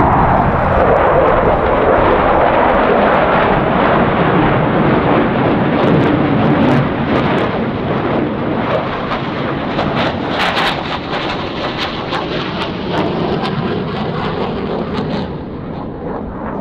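Blue Angels F/A-18 Super Hornet jet noise from a pass: a loud roar that drops in pitch over the first couple of seconds, then a rumbling roar with sharp crackling in the middle, fading slowly toward the end.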